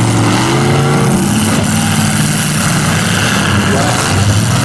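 Demolition derby car engines running loud and steady under load as two wrecked cars push against each other, with one engine revving up and down in the first second or so.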